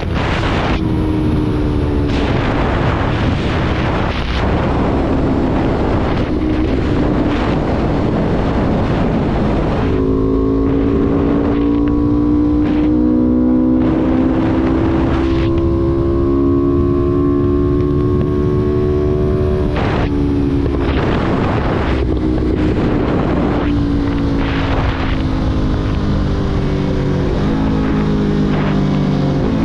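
Motorcycle engine running at a steady cruising pace, its pitch creeping slowly up through the middle, under heavy wind rumble buffeting the microphone in gusts.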